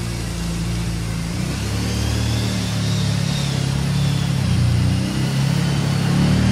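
Kawasaki Brute Force 750 ATV's V-twin engine running as the quad drives around, the engine note rising and falling with the throttle.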